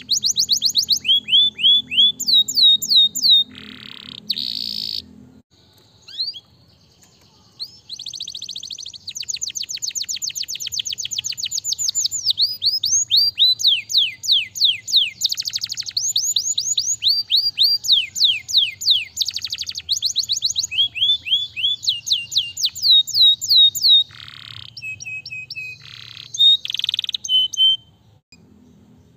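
A domestic canary singing in fast trills of quickly repeated high, falling notes. The song breaks off briefly about six seconds in and again near the end.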